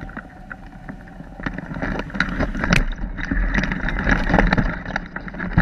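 Airflow rushing and buffeting over the microphone of a glider on a fast landing approach, with irregular knocks and rattles. It grows louder from about two seconds in.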